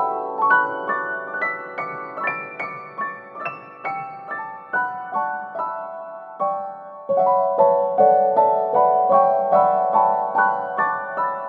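Background piano music: a gentle melody of single notes, softer in the middle and fuller again from about seven seconds in.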